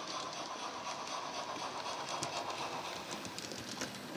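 Hornby 'Hush Hush' model steam locomotive's DCC sound decoder playing its steam running sound through the model's speaker as the train comes past at speed, with a run of sharp clicks from the wheels on the track in the second half, loudest shortly before the end.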